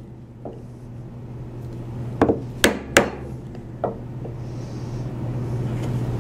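Wooden mallet striking a chisel chopping down into white oak: a few sharp taps, three strong ones in quick succession between two and three seconds in, with fainter ones before and after. A steady low hum runs underneath and grows louder.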